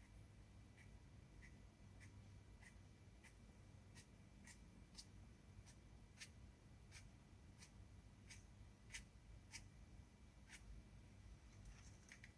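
Faint, short scratchy strokes of a fan brush flicked across rough watercolour paper to make grass marks, about one stroke every half second to second, some sixteen in all.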